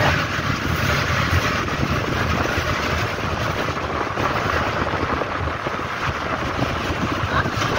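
Wind buffeting the phone's microphone over choppy sea water: a steady rushing noise with an uneven low rumble.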